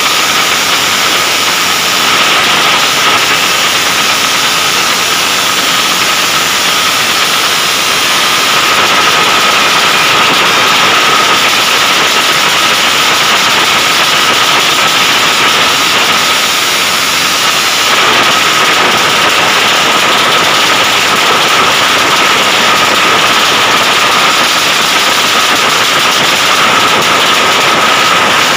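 Racing motorcycle engine running loud and steady, with a constant high whine over it.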